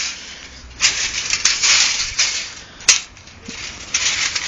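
Crinkling and rattling of a loose steel tape-measure blade, pulled out of its case, being bunched up by hand, coming in bursts, with one sharp click about three seconds in.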